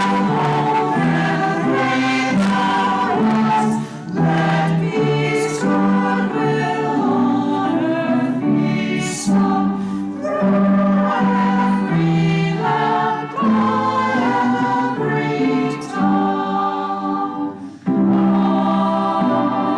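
A choir singing, phrase after phrase, with short pauses between the phrases.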